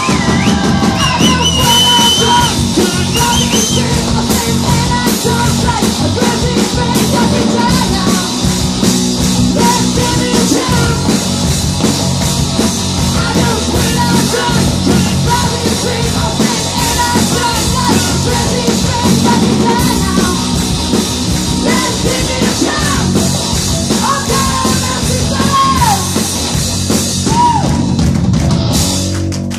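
Live rock band playing: electric guitars, bass and drum kit, with a woman singing over it.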